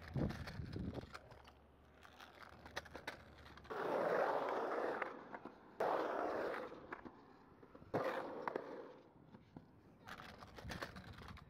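Hard wheels rolling across a concrete skatepark bowl. Louder rolling passes start sharply about four and six seconds in and a weaker one near eight seconds, with scattered clacks and scrapes between them.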